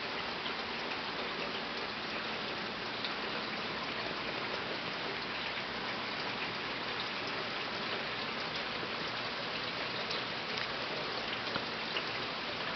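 Steady rain falling, an even hiss with scattered drop ticks on hard surfaces.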